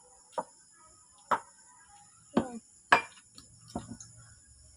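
Cooked crab shell cracking as claws and legs are broken by hand and bitten: about five sharp cracks a second or so apart, the loudest about three seconds in. The shell is hard.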